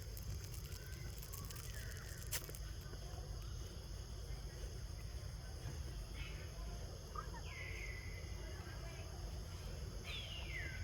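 Outdoor ambience with a steady low rumble and a few short, high animal calls that fall quickly in pitch, about six, seven and a half and ten seconds in.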